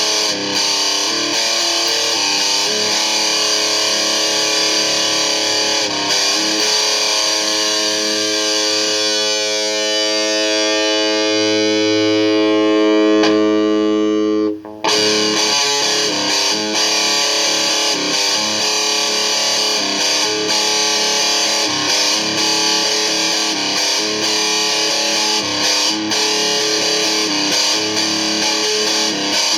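Electric guitar played through distortion. Midway through, a chord rings out for several seconds, then cuts off abruptly before the playing picks up again.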